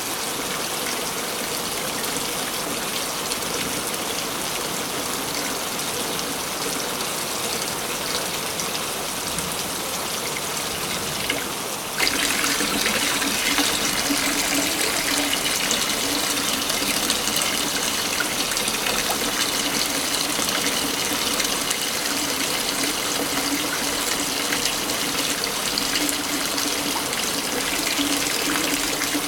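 Waterfall rushing in a steady wash of falling water. About twelve seconds in it jumps abruptly louder and brighter, as at a splice in the recording.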